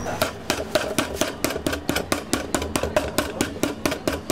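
Veal escalope being pounded flat with a metal meat pounder through plastic wrap on a wooden cutting board: quick, even strikes, about five a second.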